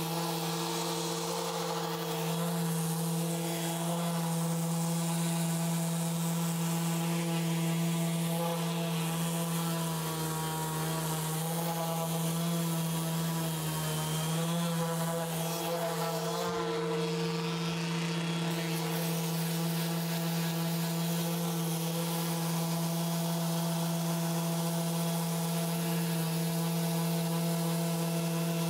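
Electric random orbital sander running steadily as its pad sands the carved wooden back of a guitar body: a constant motor hum with a hiss of abrasion over it. The pitch wavers briefly about halfway through.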